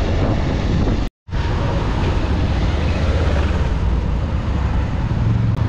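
A motorcycle engine running steadily while riding, with a rush of wind and road noise. The sound drops out completely for a moment about a second in.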